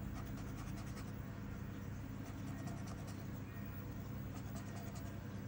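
Scratching off the coating of a lottery scratch card: runs of quick, short scraping strokes.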